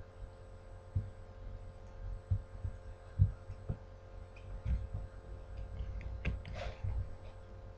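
Puppies scuffling and tumbling on a cushion pad on a wooden floor: irregular soft thumps and a few light clicks, with a short breathy noise near the end, over a steady low hum.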